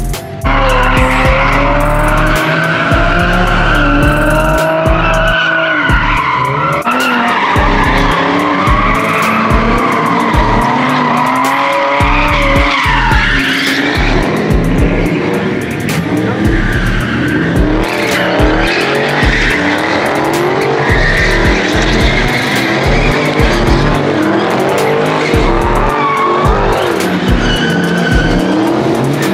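Dodge muscle car engines revving hard during burnouts and donuts, with tyres squealing continuously in a wavering, rising and falling pitch.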